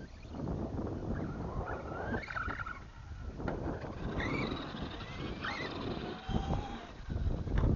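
Arrma Granite 4x4 Mega RC monster truck's brushless motor (Castle Creations Sidewinder 4 on 2S) whining as it revs up and down in short rising and falling bursts. Wind rumbles on the microphone underneath, loudest near the end.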